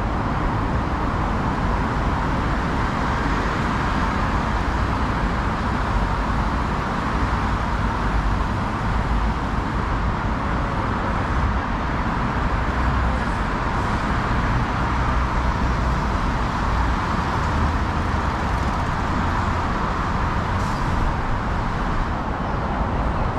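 Steady rumble and hiss of moving vehicles, continuous and even, with no single event standing out.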